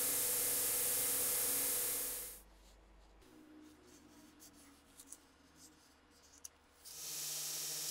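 Belt grinder running as steel is ground on it, cutting off sharply a little over two seconds in. Then quiet handling of the metal axe head in gloved hands: light rubbing with a few small ticks. Near the end the grinder runs again.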